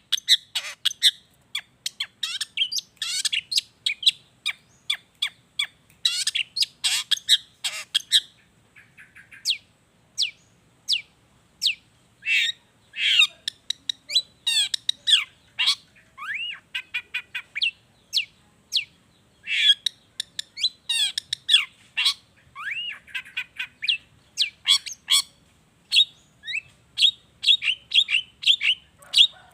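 Long-tailed shrike (cendet) singing a fast, varied song of sharp chirps, squawky notes and short rising and falling whistles, filled with mimicked calls of other birds. There are brief lulls a third of the way in and again near the middle.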